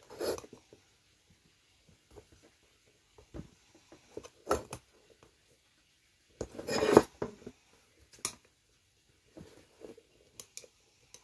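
Thin screwdriver clicking and scraping against a diecast metal toy fire-engine body as it is worked into a hole to push out a rubber bush: scattered short clicks and scrapes, with one longer, louder scrape about seven seconds in.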